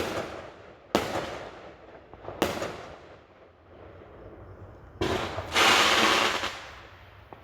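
Fireworks going off a few houses away: sharp bangs at the start, about a second in and about two and a half seconds in, each trailing off with an echo. Another bang at about five seconds is followed by a second-long dense crackle, the loudest part.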